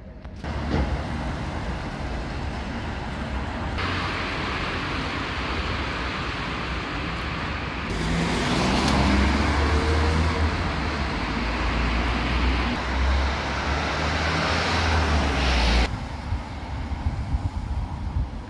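Town street ambience: steady traffic noise with a low rumble, changing abruptly in level about four, eight and sixteen seconds in.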